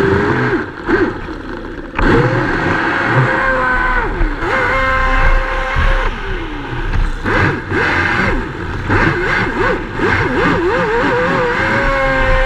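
Battery-powered RC speedboat motor heard from on board, whining with a pitch that rises and falls over and over as the throttle is worked, holding high and steady at full speed a few times. Water spray hisses off the hull beneath it.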